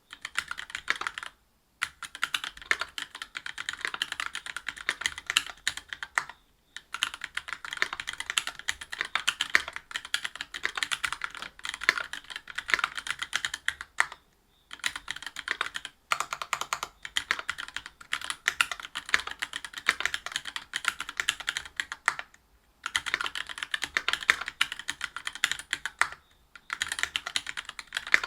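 Continuous typing on a Whale 75 mechanical keyboard with stock Gateron Milky Yellow Pro linear switches (50 g), a brass plate and GMK doubleshot keycaps: rapid key strokes in runs of several seconds, broken by a few short pauses.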